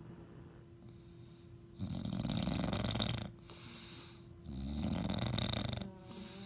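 English bulldog snoring in its sleep: two long, loud snores about a second and a half each, with quieter breathing between them.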